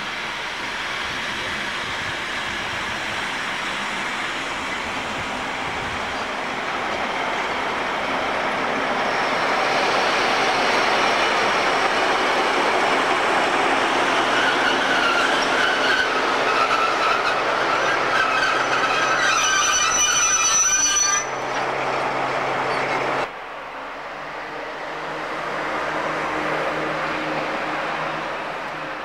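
Diesel-hauled passenger train running on the track, its noise building steadily, with metallic wheel squeal near the loudest point. The sound then cuts off suddenly and a quieter steady hum follows.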